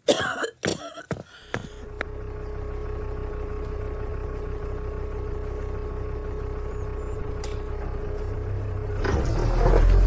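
A small motor running steadily with a low rumble and a steady hum, after a few short sharp sounds at the start. It grows louder about nine seconds in.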